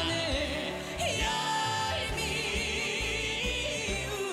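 K-trot song with a woman's singing voice over band accompaniment with a steady beat, the voice holding long notes with a wavering vibrato.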